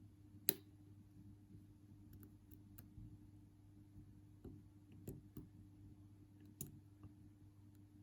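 Faint clicks of a metal lock pick working inside a Union padlock's keyway: one sharp click about half a second in, then scattered lighter ticks. The pick is catching and jamming in the tight keyway. A steady low hum runs underneath.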